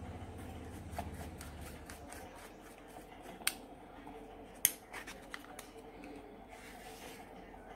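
A plastic Dahua bullet IP camera housing being worked open by hand: light rubbing and a run of small clicks and taps as the shell is twisted, with two sharper clicks in the middle. A low drone fades out about two seconds in.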